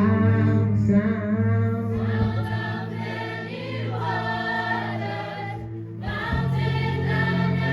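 Gospel worship song: a choir singing sustained lines over steady keyboard and bass chords, dipping briefly about three-quarters of the way through before swelling again.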